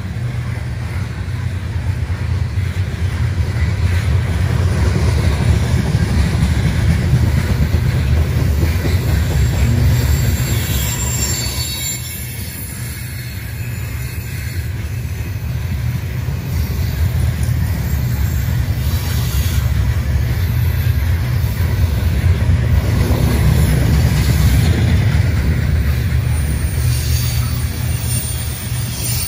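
Norfolk Southern coal hopper cars rolling past: a steady deep rumble of steel wheels on rail that swells and eases twice, with a few short high-pitched wheel squeals.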